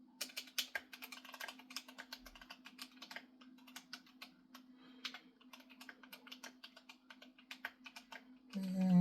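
Fast typing on a GMMK Pro mechanical keyboard: a quick, uneven run of key clacks. Near the end a loud pitched sound, sliding slightly downward, cuts in over the typing.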